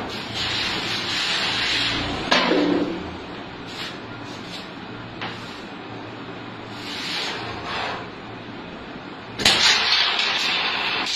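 Carrom men being arranged and slid on a carrom board, with rubbing and a few small clicks. About nine and a half seconds in there is a sudden loud crack as the striker hits the gathered pieces, and they scatter clattering and sliding across the board.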